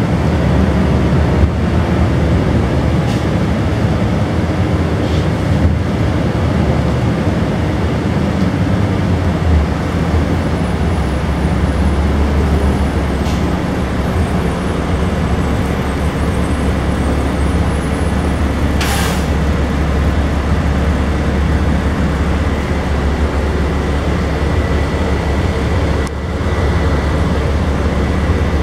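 Cummins M11E inline-six diesel of a 1998 Gillig Phantom transit bus running under way, heard from inside the passenger cabin as a steady low drone that grows heavier about a third of the way in. A short, sharp hiss of air comes about two-thirds of the way through.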